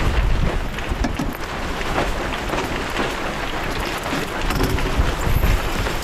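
Wind buffeting the microphone over the rush of sea and a sailboat moving through the water, with scattered knocks throughout.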